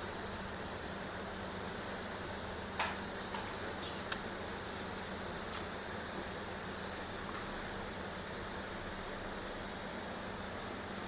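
Steady high-pitched hiss in the background, with one sharp click about three seconds in and two faint ticks after it: the safety relay's small interlock contacts being handled while emery paper is drawn between them to clean them.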